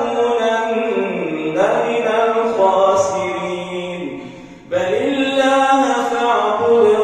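Imam's solo melodic Quran recitation in the tajweed style, sung into a microphone with long, ornamented held notes. The phrase fades out about four seconds in and a new phrase begins a moment later.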